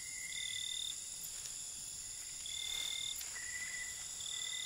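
Night-time tropical forest insect chorus: a steady high-pitched trilling, with several held whistle-like notes coming and going.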